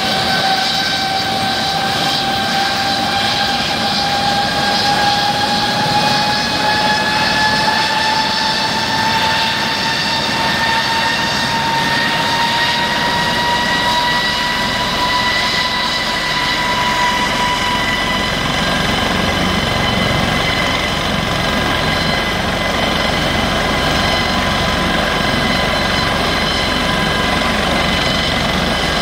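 Twin turbine engines of a Eurocopter AS365 Dauphin helicopter spooling up during start-up: a high whine that rises in pitch for the first two thirds or so and then holds steady, with the main rotor's beat growing stronger from about halfway through.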